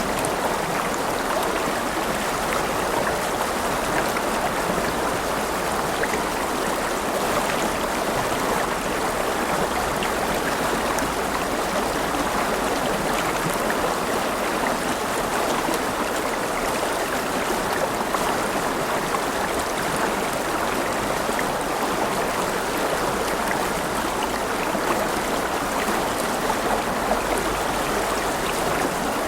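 River water running steadily over stones, a continuous rushing and burbling.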